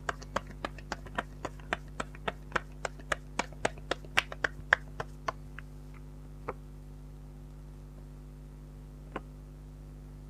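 Tarot cards being laid out on a table: a quick, uneven run of sharp card snaps and taps, about three or four a second, then two more single taps spaced well apart near the end, over a steady low mains hum.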